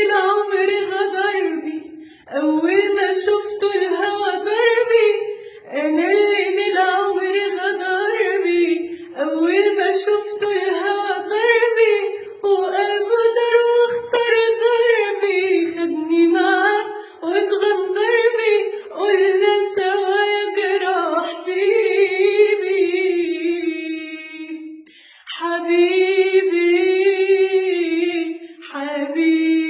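A woman singing an Arabic song unaccompanied, in long held, wavering phrases broken by short pauses for breath.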